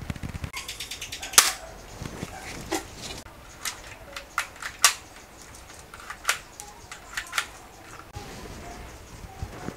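M16-style rifle firing: a quick rapid-fire burst about a second in, ending in one loud shot, then a string of single shots fired at irregular gaps of roughly half a second to a second.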